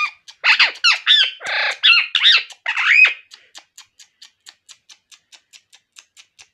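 Pet parrot squawking, a quick run of loud, pitched calls in the first three seconds, in reply to being urged to talk. Afterwards only a faint, even ticking, about five ticks a second, remains.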